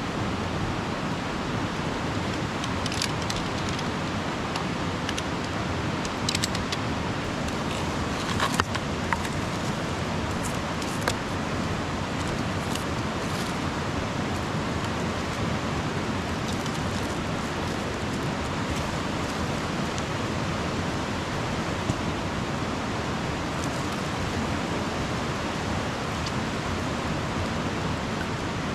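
Steady rushing of a river, with a few sharp clicks now and then.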